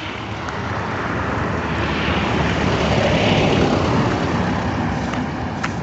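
A motor vehicle passing on the road: its engine and tyre noise swells to a peak about three seconds in, then eases off.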